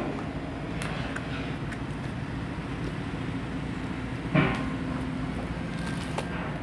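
Cardboard box and plastic-wrapped wooden panels being handled: a few faint rustles and clicks, and one sharp knock about four seconds in, over a steady low rumble.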